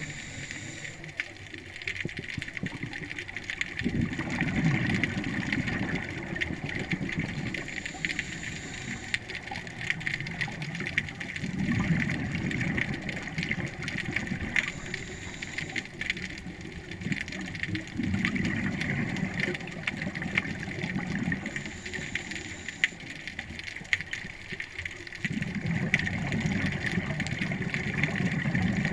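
Scuba diver's exhaled regulator bubbles rumbling in bursts of two to three seconds, roughly every seven seconds, over a constant underwater crackle of fine clicks.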